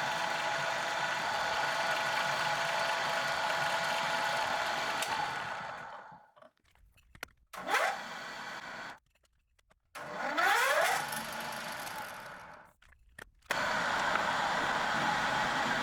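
Belt-driven drill press with a 750 W three-phase motor running steadily, then switched off and winding down. It is restarted twice with a short rising whine as the motor spins up and slows again, broken by abrupt cuts to silence. Steady running returns near the end.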